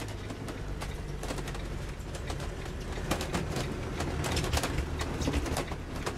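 A tag-axle motorhome on the move, heard from inside the cab: a steady low engine and road drone, with frequent clicks, creaks and rattles from the vehicle's fittings that grow busier about halfway through.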